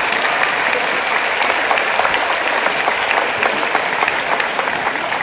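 Audience applauding: many people clapping, loud and steady.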